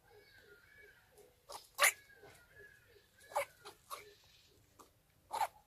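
An animal sneezing, several short sharp sneezes, the loudest about two seconds in and another near the end.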